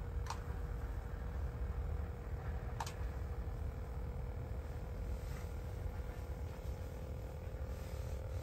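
Vexilar ice-fishing flasher running with a thin, steady electronic hum over a low rumble, with two sharp clicks about two and a half seconds apart.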